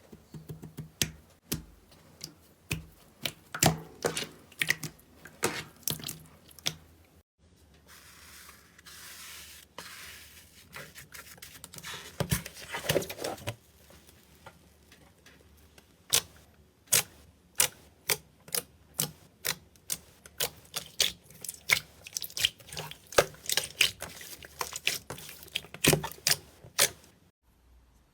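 Slime being pressed and poked by hand, giving irregular sharp clicking pops and crackles, several a second, with a short stretch of soft hissing squish between them.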